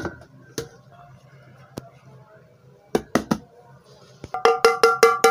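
Aluminium pittu steamer pot knocking and clinking against a stainless steel plate as it is turned upside down onto it, with a few separate knocks. Near the end, a quick run of about seven ringing metal taps on the upturned pot, to loosen the steamed pittu inside.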